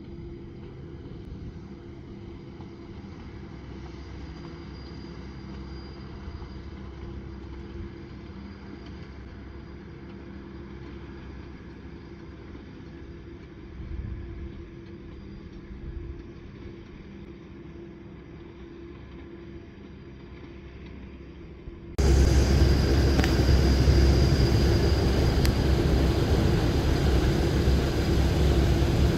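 Electric rack-railway train of the Gornergratbahn running: at first a low, fairly quiet rumble with a faint steady hum, then about 22 seconds in a sudden switch to the much louder running noise heard on board, a heavy rumble with the same steady motor hum.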